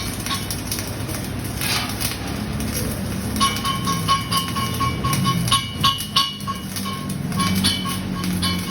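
Flux-cored arc welding: a steady crackling arc with dense, irregular clicks. A steady high tone joins it about three seconds in.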